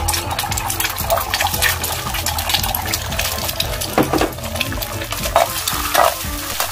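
Eggs frying in hot oil in an electric pan, sizzling and crackling steadily. A metal spatula scrapes and pushes across the pan a few times from about four seconds in.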